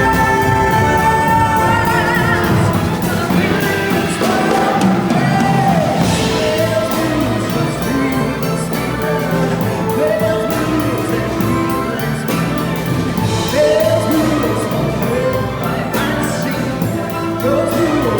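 Symphonic jazz orchestra playing a slow blues-style song live. A lead melody of sliding, bending notes runs over sustained orchestral chords.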